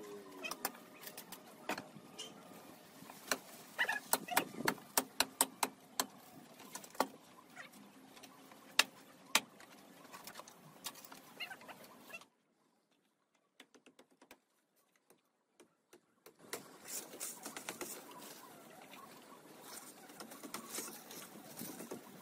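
Dry vines and twigs snapping and crackling as they are pulled and cut from an old wall: irregular sharp snaps, several a second at the busiest. The sound breaks off for about four seconds past the middle, then light crackling resumes.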